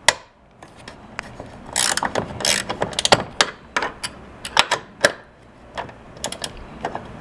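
12 mm ratcheting wrench clicking in short, irregular bursts of rapid clicks as it backs a bolt out of the liftgate arm mount.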